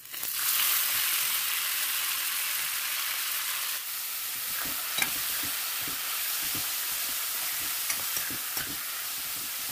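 Minced buffalo meat dropped into hot oil in a steel kadai, bursting into a sizzle at once. From about halfway a steel spoon stirs it, scraping against the pan as the meat keeps frying.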